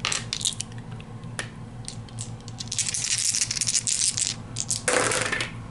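Handful of game dice rattling and clattering as they are taken up and rolled: scattered clicks at first, a dense run of clicks about halfway through and another short burst near the end.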